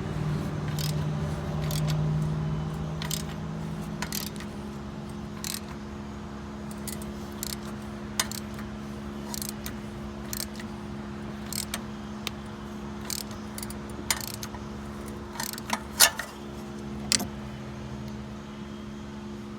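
Irregular metallic clinks and taps of hand tools and hardware while an exhaust downpipe fastener is worked off, the sharpest one about 16 seconds in, over a steady low hum.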